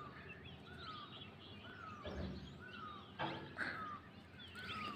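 A bird repeating a short falling call note about twice a second, with other birds chirping faintly around it.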